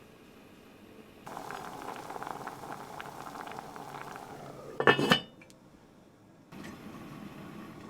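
Kitchen cooking sounds: something simmering and bubbling in a pan with a fine crackle, starting suddenly about a second in. About five seconds in comes a brief, loud, ringing clink of kitchenware, then after a short quiet the cooking noise resumes.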